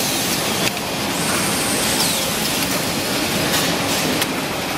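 A semi-automatic toilet-paper roll packing and sealing machine working, a loud steady machinery noise with a few short sharp clicks about a second in and near the end.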